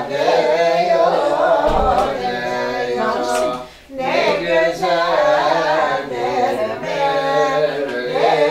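Voices singing without instruments, in long wavering held notes, with a short break about four seconds in.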